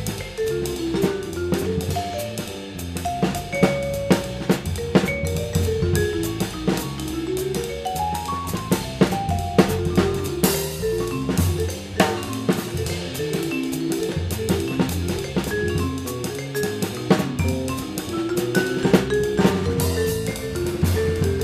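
Jazz trio of vibraphone, electric bass and drum kit playing: runs of mallet notes on the vibraphone over a low electric bass line, with frequent drum strokes throughout.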